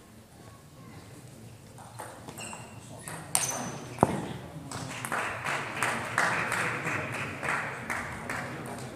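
Table tennis hall sounds: a sharp knock with brief high squeaks, then a single loud knock, followed by several seconds of dense, irregular clattering and clicking.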